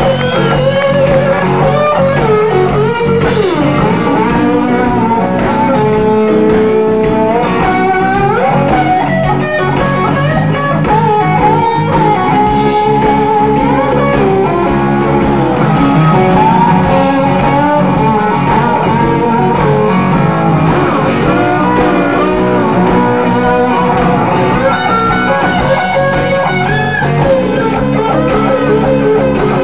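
A live blues-rock band plays an instrumental break: a lead guitar line with bent, sliding notes over bass and rhythm guitar.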